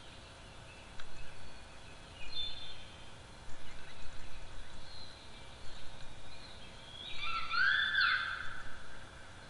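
An unidentified bird calling in the distance with an odd call: faint high notes at first, then a louder run of several overlapping rising and falling notes about seven seconds in.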